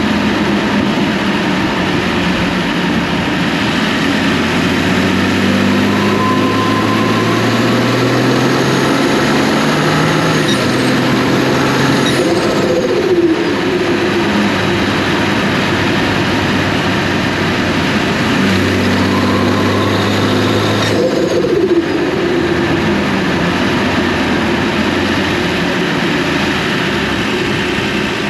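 BMW N55 turbocharged inline-six pulling up through the revs twice. Each pull ends on lift-off, about halfway through and again near the end, with a short falling note from the TurboSmart plumb-back blow-off valve venting, the valve noise the owner finds weird.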